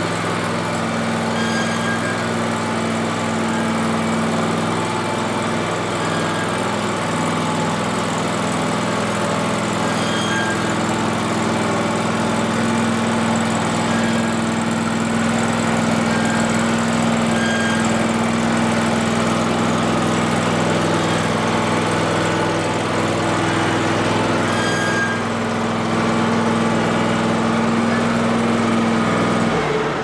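Riding lawn mower engine running steadily as the mower drives slowly across the shop floor, its note stopping abruptly near the end.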